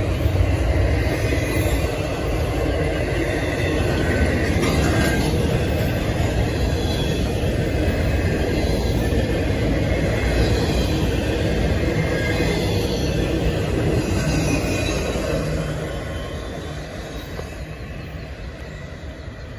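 Double-stack intermodal freight train's well cars rolling past on steel rails: a steady rumble of wheels on track with a faint high wheel squeal above it. It fades over the last few seconds as the end of the train goes by and draws away.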